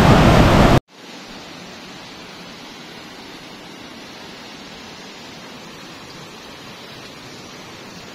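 A loud rushing noise cuts off abruptly just under a second in, leaving a faint, steady hiss.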